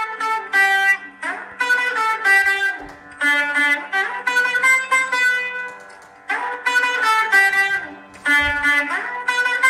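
Instrumental background music: quick runs of plucked-string notes over a steady low drone, in phrases broken by short dips about every three seconds.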